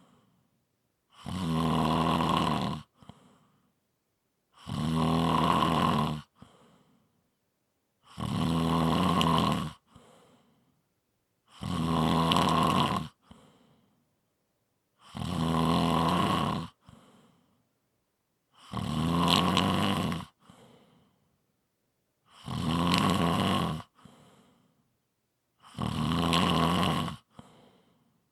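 Snoring in a slow, even rhythm: eight snores, each about a second and a half long, coming about every three and a half seconds, with near silence between them.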